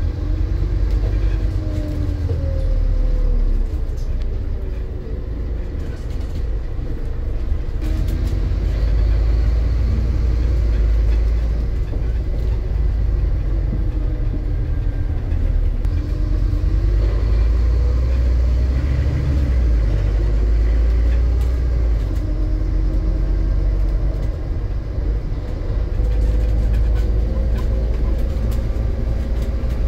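Scania N230 bus's five-cylinder diesel engine running under load with a heavy low rumble, its pitch rising and falling several times as the bus accelerates and changes gear.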